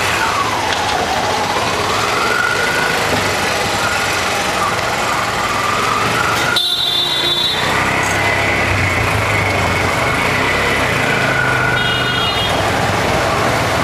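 Street traffic of auto-rickshaws and motorbikes, their small engines running steadily with a wavering whine. A horn honks for about a second partway through, and a shorter toot sounds near the end.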